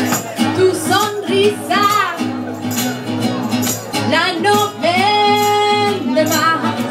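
Acoustic guitar played live with a voice singing the melody over it, holding one long note about five seconds in.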